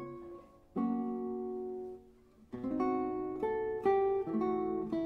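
Background music on a plucked acoustic guitar: a chord struck about a second in rings and fades, then from the middle onward a quicker run of plucked notes and chords.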